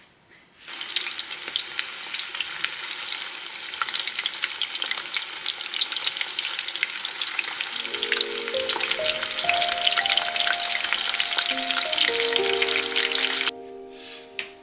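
Pieces of coated meat deep-frying in a pan of hot oil: a dense, crackling sizzle that starts just under a second in and stops suddenly about a second before the end.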